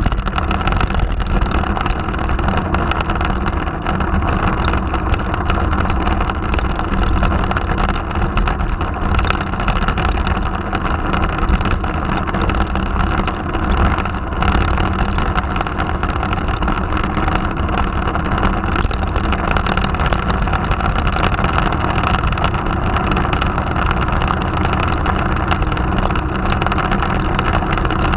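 Motorcycle engine running steadily at cruising speed, mixed with wind and road rush.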